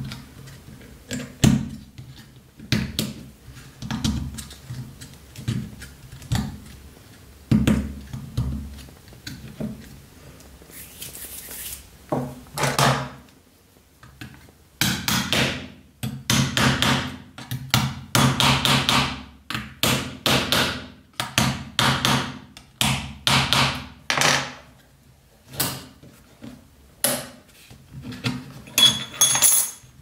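Small hammer tapping metal pins and parts of a Victorinox Cadet pocket knife during assembly: sharp metal taps, scattered at first and then in quick runs through the middle, with a short ringing ping near the end.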